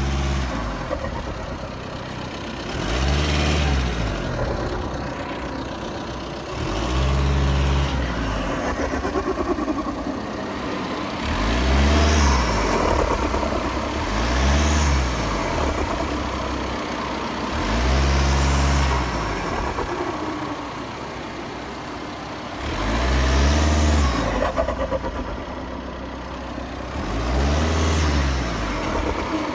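Audi A6 2.0 TDI four-cylinder turbodiesel engine revved in about seven short blips. Each blip rises and falls in pitch, and the engine idles in between.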